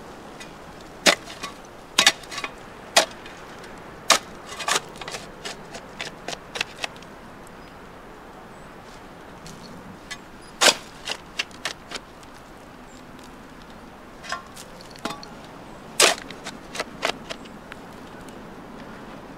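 Long-handled steel shovel digging into stony soil: irregular sharp scrapes and clinks as the blade strikes dirt and stones, with a pause of a few seconds midway.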